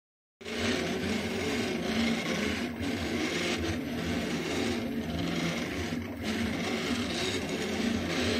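Delta 3D printer printing: its stepper motors whine in shifting tones as the print head moves around, over a steady rushing noise. The sound cuts in abruptly about half a second in.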